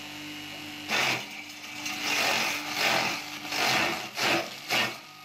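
Electric grass chopper running with a steady motor hum; from about a second in, grass stalks are fed into it and it cuts them in about seven rasping bursts.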